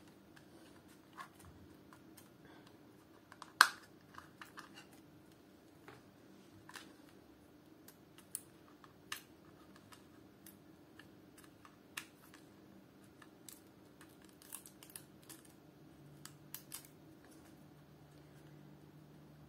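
Scattered small plastic clicks and taps as the back of a Xiaomi digital thermometer clock is handled and two coin-cell batteries are pressed into its battery compartment, with one sharp snap about three and a half seconds in and a quick cluster of clicks near the end.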